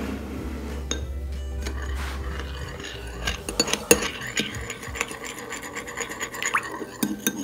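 Metal spoon stirring food colouring into oil in a small ceramic bowl: clicks and scrapes of the spoon against the bowl, growing busier about three seconds in.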